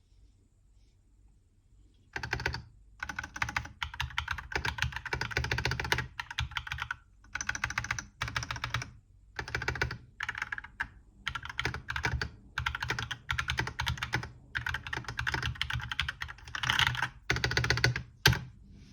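Typing on an AKKO 3061S World Tour Tokyo R2 60% mechanical keyboard with PBT keycaps: runs of quick key clacks in bursts of about a second, with short pauses between them, starting about two seconds in.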